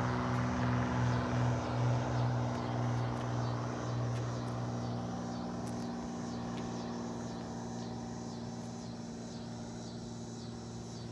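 Cessna R172K Hawk XP's single propeller engine droning as the plane climbs out after takeoff. The sound wavers for the first few seconds, then steadies and fades as the aircraft moves away.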